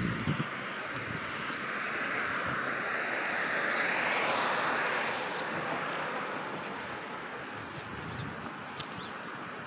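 A passing vehicle: a noise that swells to its loudest about four seconds in, then slowly fades away.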